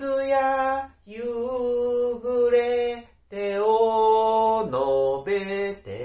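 A man singing a slow Japanese song unaccompanied, in long held notes. The singing comes in three phrases, with short breaths about one second and three seconds in.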